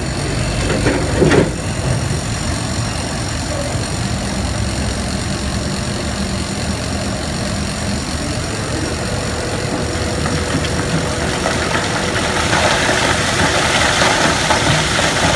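Steady engine rumble of heavy machinery running. About twelve seconds in, a gantry crane's 13 m³ excavation bucket tips and its load of rock and earth spoil pours out onto the heap, a rising rushing, clattering noise that lasts to the end.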